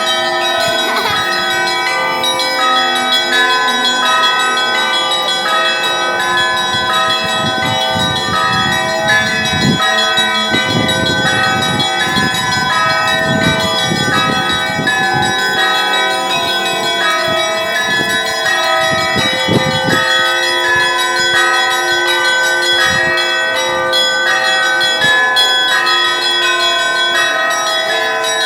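Russian Orthodox church bells ringing continuously: many bells of different pitches struck over and over, so their ringing tones overlap in a dense peal.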